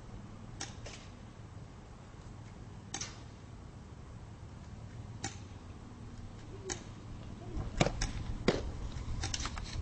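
Sharp knocks and clicks over a steady low outdoor hum, the two loudest coming close together near the end, fitting a softball smacking into a catcher's leather mitt during pitching practice.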